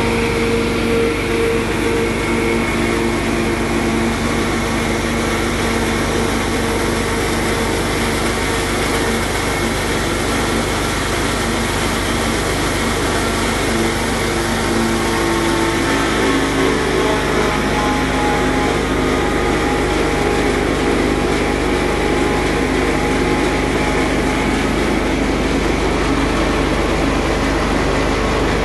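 Belt-driven rice grinding machine and its electric motor running steadily under load, grinding rice into flour: a constant mechanical hum with several steady tones.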